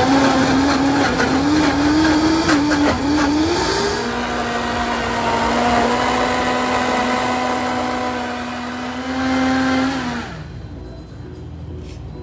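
Vitamix blender motor running on a thick smoothie. Its pitch wavers unsteadily for the first few seconds, rises, then holds a steady whine from about four seconds in, and the motor shuts off and winds down about ten seconds in.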